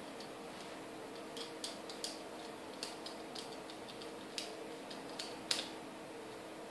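Light, irregular clicks and ticks of a small screwdriver working the terminal screw of a plastic fluorescent-tube lampholder while a wire is fastened into it, over a faint steady hum.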